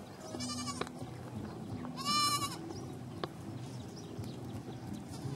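Goat bleating twice: two short, high calls about a second and a half apart, the second louder.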